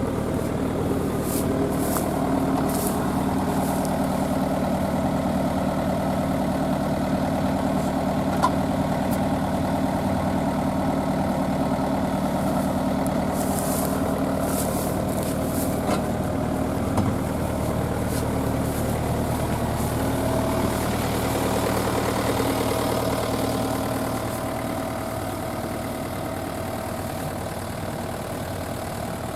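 Rice combine harvester's diesel engine running steadily, growing a little quieter near the end.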